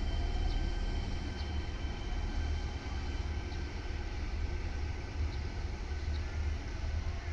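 Electric train running past a level crossing: a steady low rumble with faint high whining tones that weaken after the first couple of seconds.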